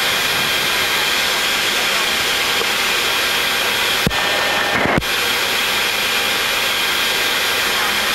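Steady hiss of air and fans in a Boeing 737 MAX flight deck during pushback, engines not yet started. Two short knocks about four and five seconds in.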